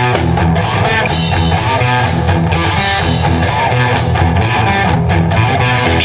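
Live rock band playing an instrumental passage: guitar over bass and a drum kit keeping a steady beat, with no vocals.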